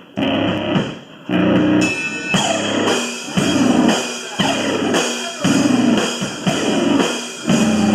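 Live rock band playing a song's instrumental intro: electric guitar chords at first, then the drum kit and the full band come in about two and a half seconds in and play on in a steady beat.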